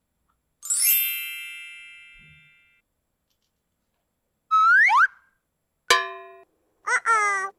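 Cartoon-style sound effects: a bright chime about a second in that rings out and fades over two seconds, then a quick rising whistle glide, a short struck ding, and a wobbling rising tone near the end.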